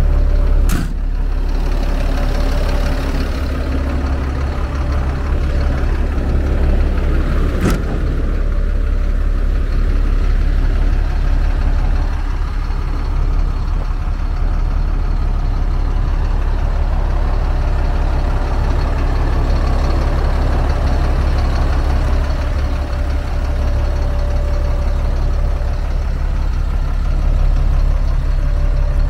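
Caterpillar 3126 inline-six diesel in a Freightliner FL70 truck idling steadily with a deep, even hum. A short knock sounds about a second in and another near eight seconds.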